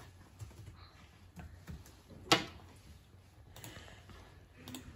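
About half a dozen scattered sharp clicks from a laptop and computer mouse being worked, one much louder about halfway through, over a faint low hum.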